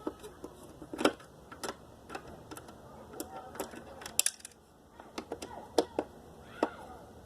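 Irregular sharp metal knocks and clanks, some with a brief ring, from scrap appliance parts being handled and pried at by hand.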